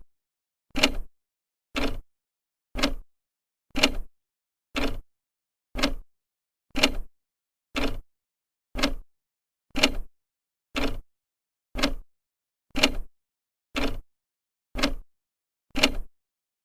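Old clock's second hand ticking steadily, one tick a second with silence between.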